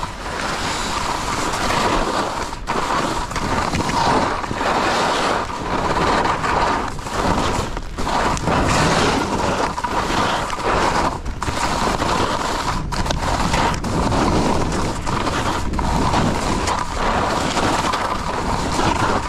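Skis scraping and carving over packed snow on a downhill run, with wind rushing on the microphone. The noise swells and dips every second or so.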